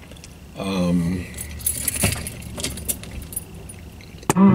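Light metallic jingling and scattered clicks, with a short hum from a man's voice about half a second in and another, louder one near the end.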